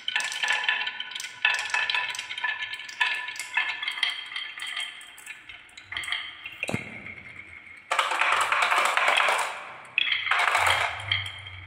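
Glass marbles rolling down wooden marble-run tracks, clicking and clinking against the wood and each other. In the second half, a crowd of marbles rattles through together in two dense runs.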